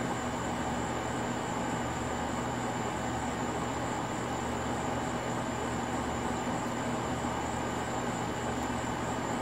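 Steady night-time outdoor ambience: a continuous low hum with an even hiss and a constant high-pitched whine over it, with no distinct sounds from the feeding rats.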